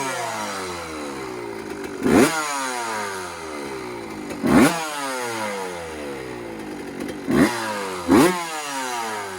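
1990 Suzuki RM125's single-cylinder two-stroke engine being blipped: four quick revs, each falling straight back to idle, the last two close together near the end.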